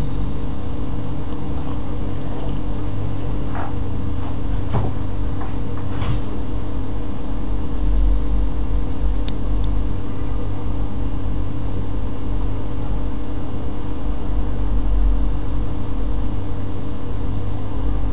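Steady low hum with a few faint clicks and no speech.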